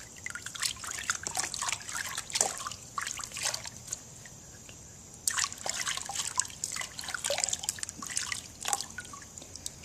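Water splashing and dripping as a kitten is wetted down in its bath: irregular small splashes and trickles, with a short lull about four seconds in.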